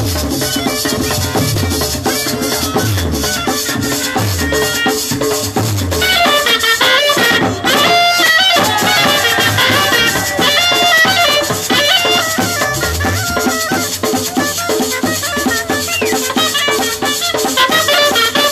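Live Colombian Caribbean folk music: a caña de millo (cane transverse clarinet) plays fast, high melodic runs over maracas and drums. The wind melody grows stronger about a third of the way in.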